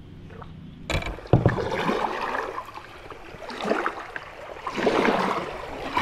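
Kayak paddle strokes: the blades swish and splash through the river water in surges every second or so. A couple of sharp knocks come as the paddling starts, about a second in.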